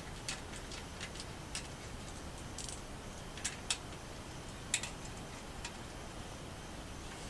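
Scattered light metallic clicks and ticks, irregularly spaced, as tools and bolts are handled while a hand cycle's frame bolts are undone. The sharpest clicks come about three and a half and nearly five seconds in, over a faint steady hiss.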